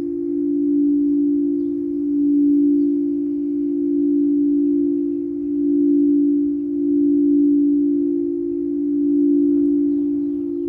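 Singing bowl held in a steady, sustained low tone. It swells and fades in slow regular pulses, about one every one and a half to two seconds.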